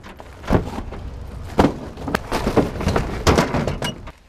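Cardboard cases of chips being set down and pushed into a pickup truck bed: a string of irregular thumps, knocks and scrapes.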